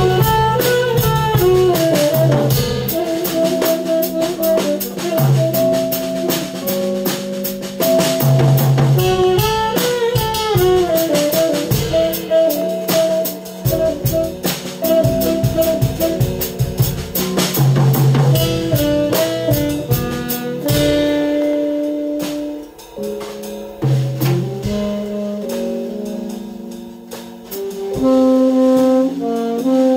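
A small jazz group of drum kit, saxophone and electric keyboard playing together. The drums play busily with cymbals for about the first two-thirds, then drop back, leaving quieter held keyboard and saxophone notes until the band swells loud again near the end.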